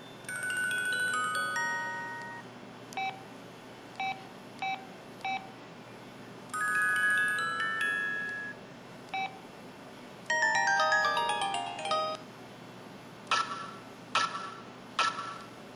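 Mobile phone's built-in sound effects played one after another: short synthesized melodic jingles of about two seconds, separated by single short beeps and ending with three brief sharp chimes.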